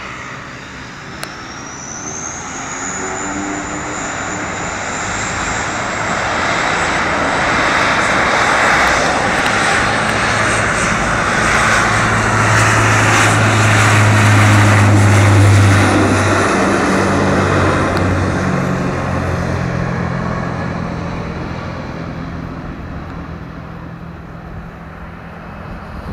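Bombardier Dash 8 Q400's twin Pratt & Whitney PW150A turboprops at take-off power. A high whine climbs in pitch over the first few seconds, then a loud propeller drone and roar builds to its peak about halfway through the take-off roll and fades toward the end.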